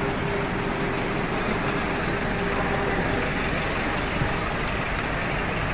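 City street traffic with a motor vehicle's engine running, and a steady hum for about the first three seconds.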